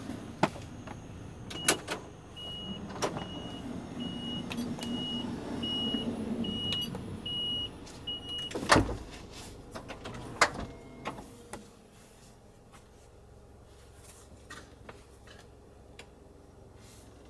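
The Toyota Hiace camper's power sliding door closing: a string of high warning beeps for about seven seconds, then the door shuts with a loud knock about nine seconds in. After it shuts, the low outside hum falls away and only small clicks and knocks remain.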